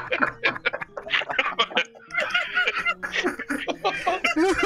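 Several people laughing hard at once, heard over a video-call connection: fast, choppy bursts of laughter, with high wavering peaks near the end.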